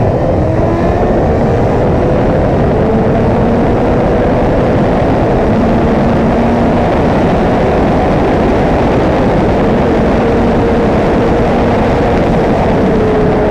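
2014 Yamaha R6's 600 cc inline-four engine held at high revs at speed: a steady, loud drone whose pitch rises a little over the first few seconds and then holds. Heavy wind rush covers it.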